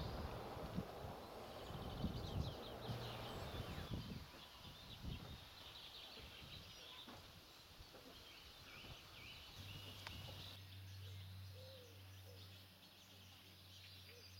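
Faint outdoor ambience of small birds chirping and twittering, with gusts of wind buffeting the microphone during the first few seconds and a faint low hum setting in near the end.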